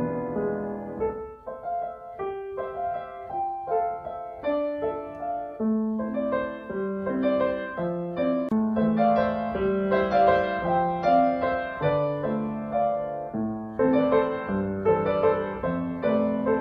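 Background piano music: a slow melody of single sustained notes over a soft accompaniment.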